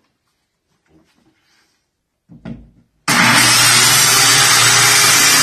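Corded circular saw starting suddenly about three seconds in and running steadily as it rips a sheet of luan plywood underlayment. A brief low knock comes just before it starts.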